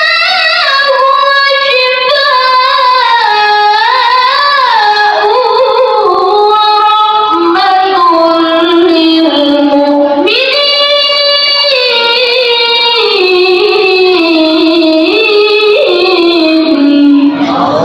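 A boy's voice reciting the Qur'an in the melodic tilawah style, amplified through a handheld microphone, in long held phrases with wavering ornamental turns of pitch and short breaths between them.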